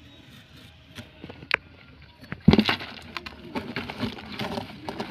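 A few sharp clicks, then a loud thump about halfway through, followed by irregular rustling. This is handling noise from the phone filming as it is moved in close.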